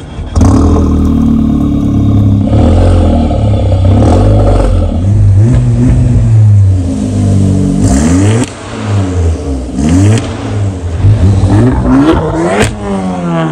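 Skoda Octavia 1.8T's turbocharged four-cylinder petrol engine revving through its modified exhaust: a stainless section, a Helmholtz resonator in place of the stock one, and a split system ending in dual tips. Revs are held high at first, then the engine is blipped repeatedly, pitch rising and falling, with a few sharp cracks between blips near the end.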